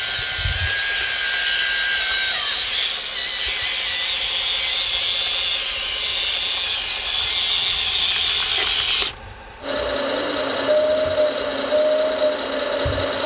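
Radio-controlled Volvo excavator's electric motors whining high and steady, the pitch shifting about two seconds in. About nine seconds in the sound cuts off sharply and a lower, steadier motor whine from a second RC excavator takes over.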